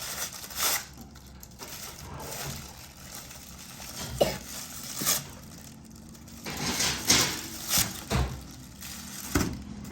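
Plastic Play-Doh toy pieces being handled and set down on a table: a string of light, irregular clacks and rattles.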